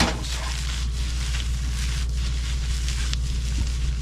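Egg fried rice sizzling in a hot pan, with a steady low rumble underneath and a few faint stirring scrapes.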